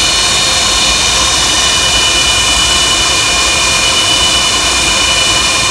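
Antonov An-124's Ivchenko-Progress D-18T turbofan engines running close by: a steady, loud rush with a high whine made of several steady tones.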